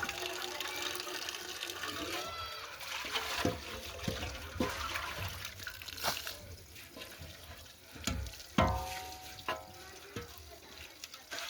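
Water running and splashing, with scattered sharp knocks.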